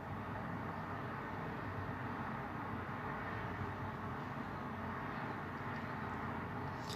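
Steady low background rumble and hiss with no speech, with a faint click right at the end.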